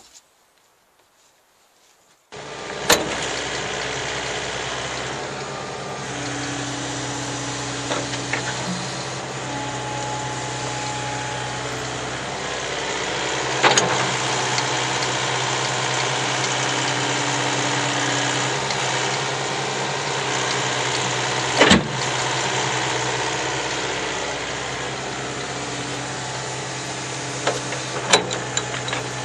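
Komatsu hydraulic excavator's diesel engine running steadily, coming in suddenly a couple of seconds in, with a few sharp clanks from the arm and bucket as it works.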